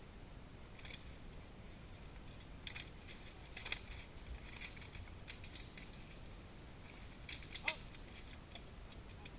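Clanks and clatter of steel plate armour and polearms as two armoured fighters strike and grapple: a scatter of sharp metallic knocks, the loudest a little before the end.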